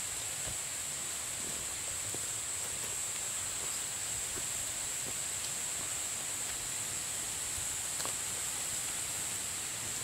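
Footsteps crunching and rustling through dry leaf litter on a forest path, with scattered faint crackles, over a steady high-pitched hiss that runs throughout.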